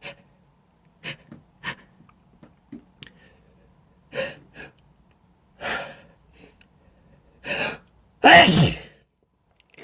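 A person's sneeze: a run of short, sharp in-breaths that grow longer, then one loud sneeze with a falling voiced 'choo' near the end.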